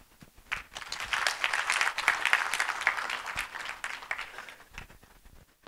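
Audience applauding. The clapping starts about half a second in, is fullest over the next couple of seconds, then thins out and fades away near the end.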